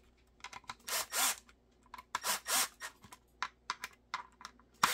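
Cordless impact driver driving screws into a holster's plastic QLS mounting block in several short bursts, with small clicks of handling in between.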